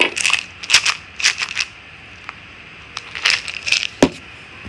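Dog biscuits crunching and crackling in several short bursts, with a few sharp clicks and a quieter stretch in the middle.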